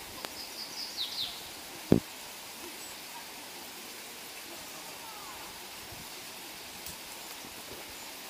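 Outdoor ambience with a steady background hiss; a bird chirps a few times in the first second or so, and there is a single dull thump about two seconds in.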